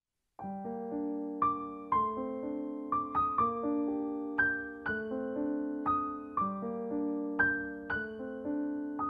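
Background piano music that starts suddenly about half a second in: a gentle melody of single struck notes, about two a second, over held low chords.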